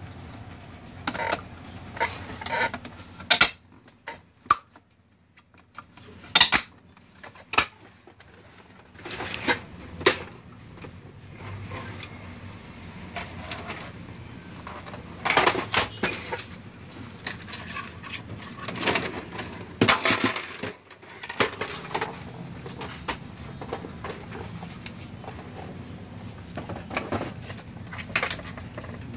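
Plastic housing and parts of a Brother DCP-T700 inkjet printer clicking and knocking as they are handled and fitted together, in irregular sharp clicks and clatters over a low steady hum.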